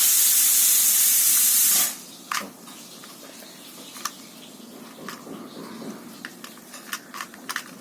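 A loud steady hiss for about two seconds, then scattered plastic clicks and clacks of a 2x2 Rubik's cube being twisted.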